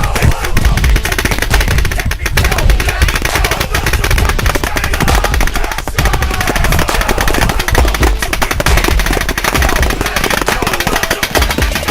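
Piranha GTi Plus paintball marker with a Rampage electronic trigger board firing rapid strings of shots, a fast stream of sharp pops.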